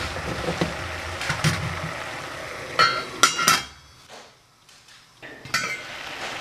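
Cockle shells knocking as they are set into a stainless steel steamer basket over boiling water, with a steady boiling hiss underneath. About three seconds in, a stainless saucepan lid clinks and rings several times as it goes onto the pot, and a single metal clink comes near the end.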